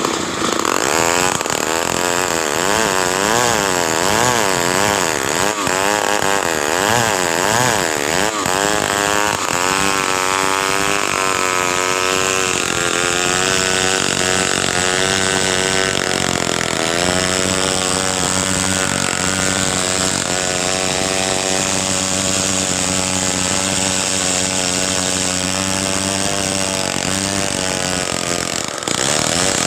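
Stihl two-stroke chainsaw running hard. For the first several seconds its pitch swings rapidly up and down, then it holds a steady pitch under load, dipping briefly near the end, as in a long cut through wood.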